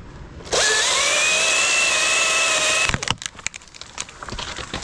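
A speed line's pulley running fast down the rope as a limb rides it, a high whine that climbs at first, holds steady for about two seconds and cuts off suddenly. A clatter of knocks and rattles follows as the limb comes to rest.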